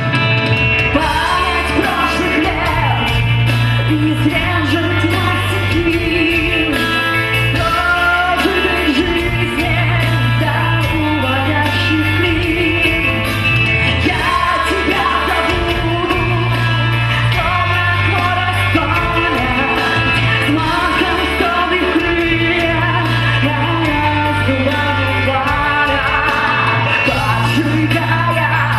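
Live rock band playing: a woman sings over keyboards, guitar, bass guitar and a drum kit, at a steady, loud level throughout.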